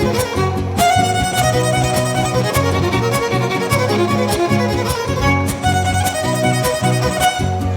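Huasteco trio playing an instrumental huapango break: a violin carries the melody over rhythmic strummed chords from the jarana huasteca and huapanguera.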